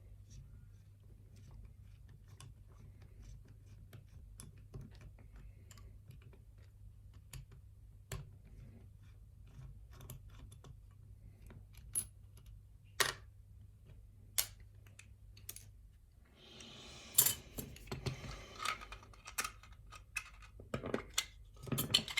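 Lock picks working the pins of a mortise lock cylinder: scattered faint metallic clicks, turning to louder, denser clicking and rattling of metal parts from about three quarters of the way in.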